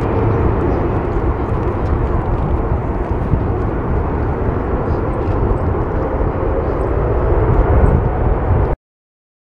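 Jet engine noise from an Airbus A380-841 (Rolls-Royce Trent 970 engines) rolling along the runway after landing: a steady low rumble with a faint tone that slowly falls. It cuts off abruptly near the end.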